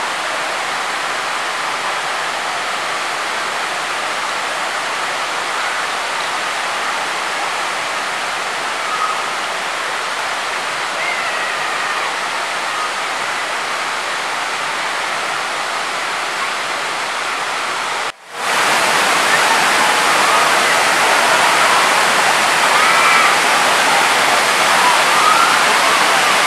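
Waterfall and cascades rushing steadily. The sound cuts out briefly about 18 seconds in and comes back louder.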